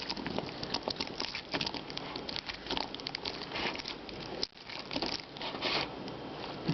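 Cyber Clean cleaning putty being pressed onto a computer keyboard and peeled off the keys: a dense run of soft sticky crackles and small clicks that eases off near the end.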